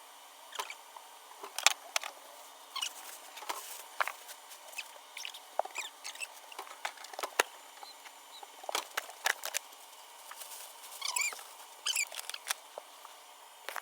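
Irregular clicks, taps and scrapes with a few short squeaks near the end, from hands and tools working on an air conditioner unit during a cleaning.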